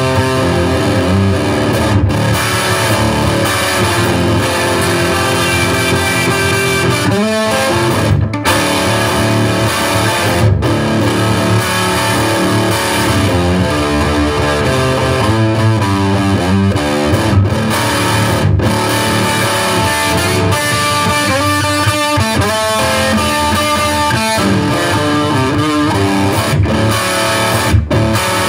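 Gibson Les Paul Studio electric guitar, tuned down a whole step, playing a blues riff: a continuous run of picked notes and chords with a few very brief breaks between phrases.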